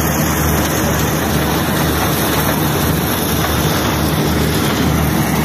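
Corn-shelling machine (called a corn grinder) running steadily: a constant loud mechanical din with a low engine hum under it.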